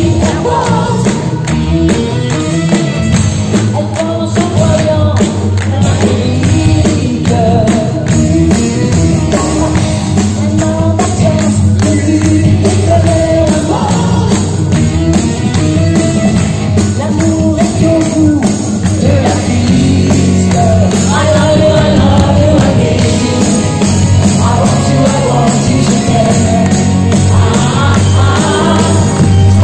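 Live band performing a pop song: women singing into microphones over electric guitar, keyboard and a steady beat, heard from within the concert audience.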